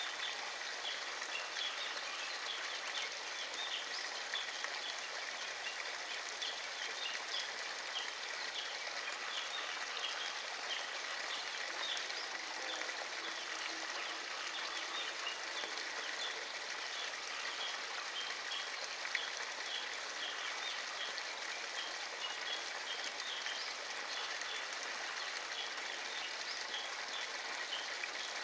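Outdoor rural ambience: a steady hiss with many short, high chirps repeating irregularly, and a faint low hum rising and fading from about twelve to sixteen seconds in.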